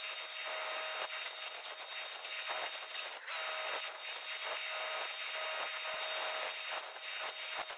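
Electric arc welding on a steel trommel drum: a steady crackling sizzle with a faint high whine, broken for a moment about three seconds in.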